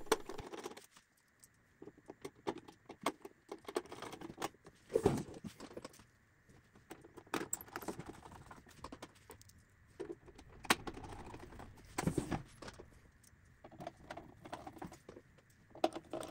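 Irregular light clicks, taps and scrapes of hands working on a metal receiver case, fitting the cover screws with a screwdriver.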